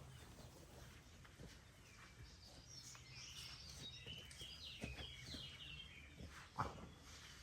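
Faint birdsong: a small bird's quick run of repeated chirping notes in the middle, over a low steady background rumble, with one sharp tap near the end.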